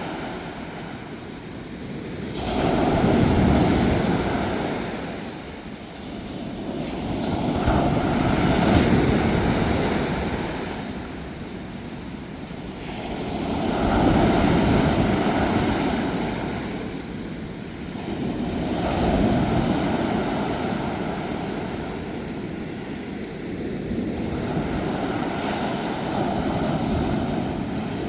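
Ocean waves breaking and washing on a shore, the surf swelling and ebbing about every five to six seconds.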